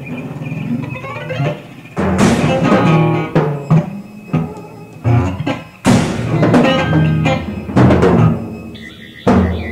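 Free-improvised jazz from a quartet of piano, trumpet, saxophone and guitar or bass. Several loud struck hits land at uneven intervals, each ringing and dying away over sustained pitched tones, with no steady beat.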